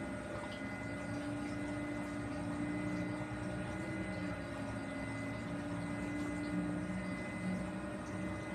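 Tugboat engine running steadily under load while pushing, a low rumble with a hum whose pitch wavers slightly.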